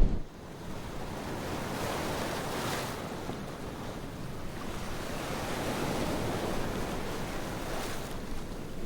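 Ocean surf washing onto a beach: a steady, noisy rush of breaking waves that swells and eases, with some wind on the microphone.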